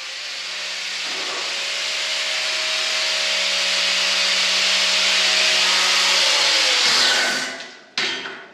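Corded angle grinder grinding the end of a 1.5-inch steel roll-cage tube, shaping the notch that fits it against the neighbouring tube: a steady, harsh grinding that grows louder, then the grinder lifts off and winds down about seven seconds in. A clunk follows near the end.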